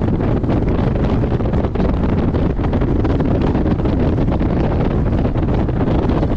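Steady wind buffeting on the microphone over the running and road noise of a Porsche 718 Boxster GTS driven on track.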